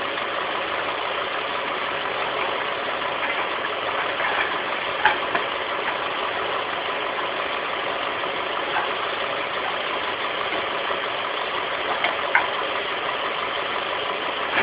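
Heavy KAMAZ diesel truck engine running steadily at idle, with a few short knocks about five seconds in and again near twelve seconds.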